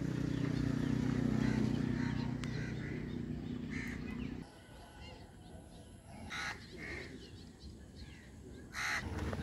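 A steady low hum with a clear pitch that stops suddenly about four and a half seconds in, followed by a few short calls in quieter surroundings, the loudest near the end.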